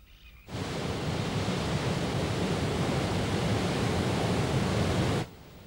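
Waterfall: a steady rush of falling water that starts abruptly about half a second in and stops abruptly near the end.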